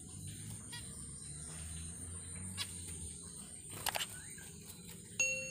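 Sound effect of a subscribe-button animation: a sharp double mouse click just before four seconds in, then a bright bell ding near the end that rings and fades. Under it runs a faint steady high hiss with a low hum.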